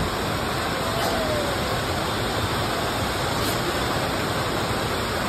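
Steady hiss of heavy rain pouring down on the station roof and tracks.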